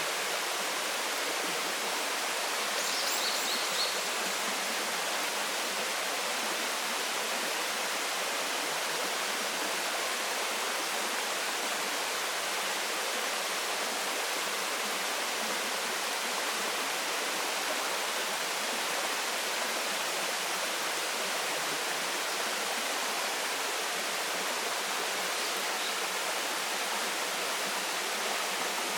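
Waterfall rushing steadily, an even wash of falling water. A few brief high chirps come through about three seconds in.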